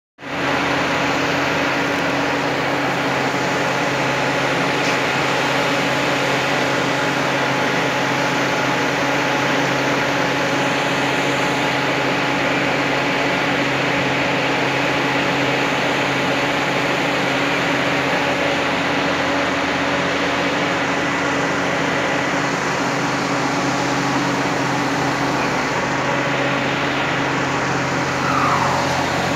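A steady mechanical drone with a constant low hum under a broad hiss, unchanging throughout. A short falling squeal comes near the end.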